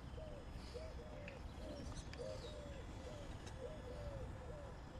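A bird calling in a steady run of short, low, arching notes, two or three a second, over a low background rumble.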